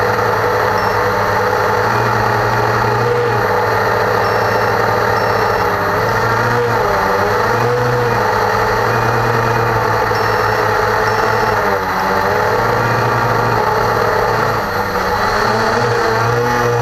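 Cheerson CX-20 quadcopter's four brushless motors and propellers buzzing steadily and loudly close to the onboard camera's microphone. The pitch wavers, dipping and bending briefly about twelve seconds in and again at the very end as the motor speed changes.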